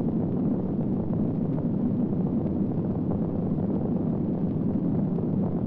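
Nuclear explosion sound effect: a steady, dense low rumble that set in abruptly just before, with no tune or voice in it.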